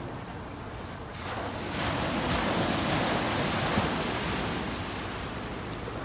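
Small ocean waves breaking and washing up a sandy beach. The rush of surf swells about a second in and slowly eases off.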